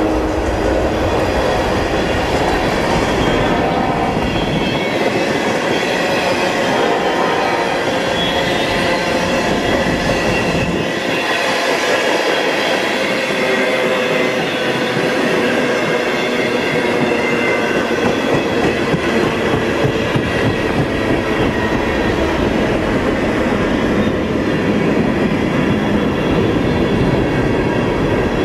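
Freight train cars rolling past on the rails, wheels clattering over the track, a loud, continuous rumble.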